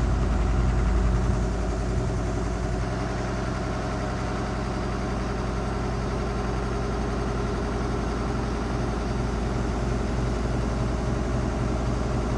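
Washing machine drum spinning in its final spin cycle: a steady motor hum over a low rumble, dropping slightly in level about a second and a half in.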